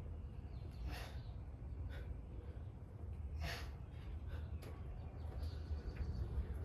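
A man's hard breaths, sharp exhalations roughly once a second in time with push-up reps, over a low steady rumble.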